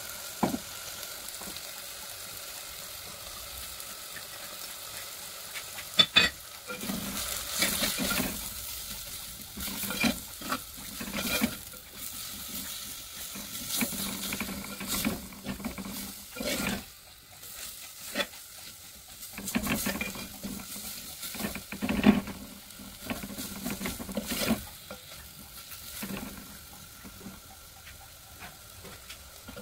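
Sliced onions frying in an unglazed clay pot, sizzling steadily. After a sharp click about six seconds in, a spatula stirs and scrapes them against the pot in irregular strokes.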